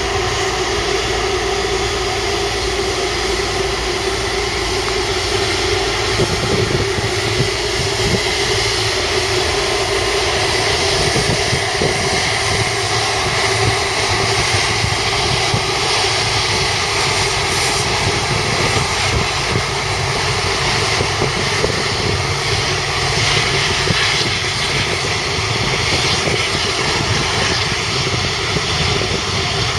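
Airbus A330-243's Rolls-Royce Trent 700 turbofans running at low taxi power as the airliner rolls past on the ground: a steady roar with several held whining tones.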